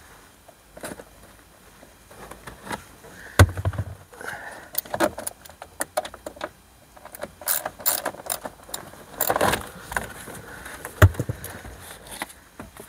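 Small socket ratchet clicking as a fixing at the top of the A-pillar is undone, then clicks and knocks of the plastic A-pillar trim being pulled off its clips. Two heavier knocks stand out, about three seconds in and near the end.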